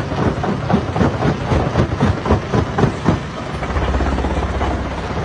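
Hammer stone crusher running with rocks knocking and breaking inside it, about three knocks a second. The knocking stops about three seconds in, leaving the machine's steady low running drone.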